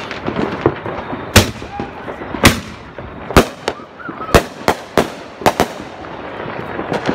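Fireworks going off: a string of sharp bangs at irregular intervals, about eight loud ones with smaller pops between.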